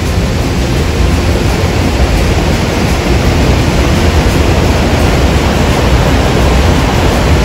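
Loud, steady rushing of a waterfall's cascading water on the Krka River.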